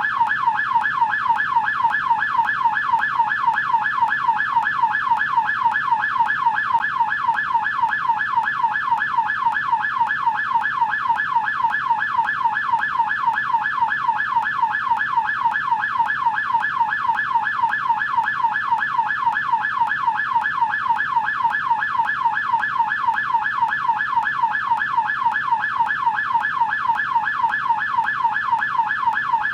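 American police car siren in yelp mode: a rapid, continuous wail that sweeps up and down in pitch several times a second, repeating evenly without a break.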